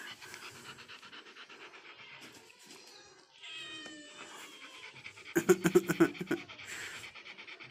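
Doberman panting rapidly with its tongue out, much louder for about a second past the middle. A kitten gives a short high mew just before that.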